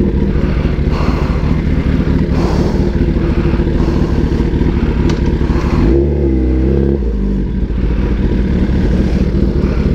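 Kawasaki ZX-10R inline-four engine idling through a very loud aftermarket exhaust running without its dB killer, with a short dip and rise in engine pitch about six seconds in.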